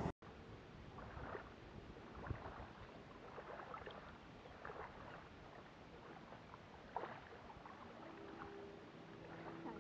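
Faint small waves lapping against shoreline rocks in soft, scattered splashes. A faint steady hum comes in about eight seconds in.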